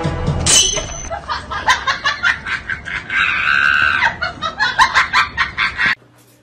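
A person laughing hard in rapid bursts, with a drawn-out high shriek about three seconds in.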